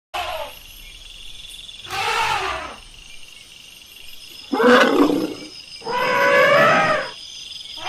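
Elephant calling: four loud calls with a strong tone, each under about a second long, the loudest about five seconds in.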